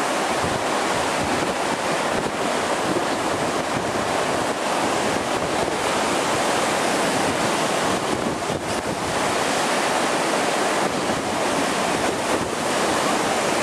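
Heavy storm surf crashing and rushing ashore in a steady roar, with wind buffeting the microphone.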